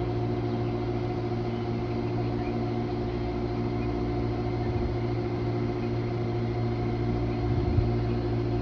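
Steady hum of a stopped Amtrak Northeast Regional train standing at the platform: the running fans and electrical equipment of its passenger cars, holding several steady tones. A single short knock near the end.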